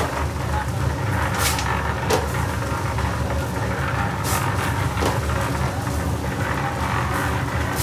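An engine running steadily, with a few short metallic clanks and scrapes of shovels and concrete pans over it.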